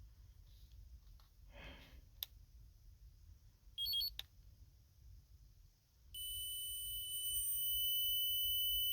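A short electronic beep about four seconds in, then a steady, high-pitched electronic buzzer tone from the 2015 Honda CR-V starts about six seconds in and holds.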